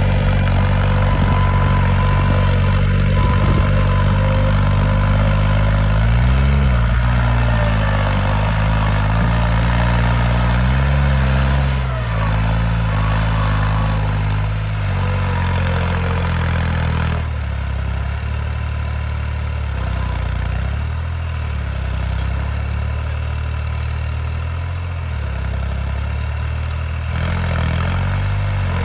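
New Holland 3600-2 tractor's three-cylinder diesel engine running while the tractor does a wheelie stunt, circling on its rear wheels with the front end lifted. Its pitch rises and falls a couple of times, around six and eleven seconds in.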